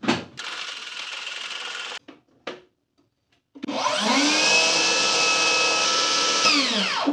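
DeWalt 60V brushless cordless table saw: a click as the battery pack is pushed in, then a steady hiss for about a second and a half. About three and a half seconds in, the saw motor starts with a rising whine, runs steadily for about three seconds, and winds down with a falling pitch near the end as it is switched off.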